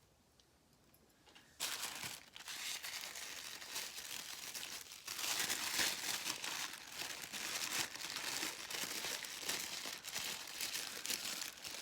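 Packaging wrap crinkling and rustling as items are unwrapped and handled, starting suddenly about a second and a half in and going on continuously.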